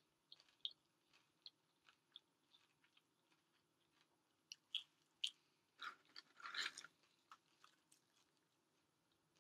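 A person chewing food close to the microphone: faint, scattered short mouth clicks, with a louder cluster of them about five to seven seconds in.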